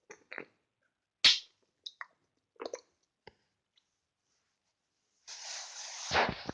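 Close-miked wet chewing and mouth sounds of someone eating a slimy, chewy food: scattered sticky smacks and clicks, one sharper click about a second in. Near the end a hiss of about a second ends in a low thump.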